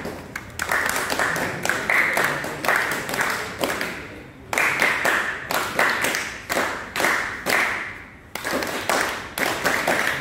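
A group of people clapping together in a steady rhythm, a few claps a second, pausing briefly twice.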